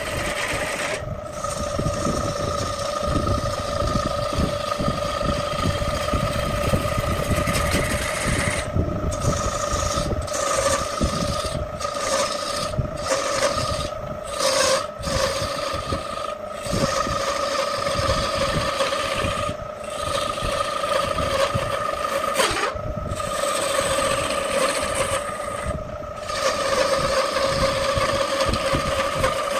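Wood lathe running with a steady whine while a hand-held turning tool scrapes and cuts into a spinning wooden disc. The cutting noise breaks off for moments many times, most often from about nine to seventeen seconds in, as the tool is eased off and back on.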